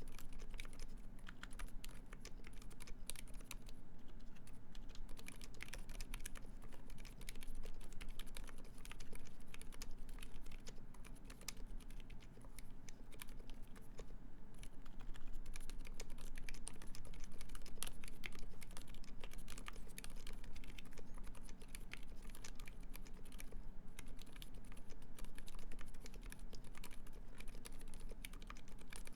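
Continuous typing on a Uni660 split mechanical keyboard with Silent Alpaca silent linear switches lubed with Krytox 205g0, a brass plate and GMK keycaps. The keystrokes are quiet and muted and come in quick, irregular runs.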